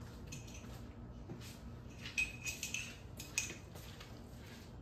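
Metal spoon clinking against a small glass jar of chile-oil salsa: a few light clinks between about two and three and a half seconds in, one ringing briefly.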